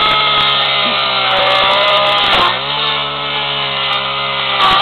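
Chainsaw running at full speed, cutting into a CD player's plastic and metal casing. Its pitch drops about halfway through as the chain bites into the casing, then rises again near the end.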